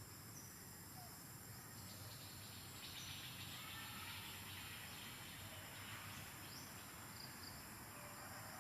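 Faint background of insects: a steady high-pitched cricket-like drone with a few brief chirps, and a soft hiss that swells for a few seconds in the middle.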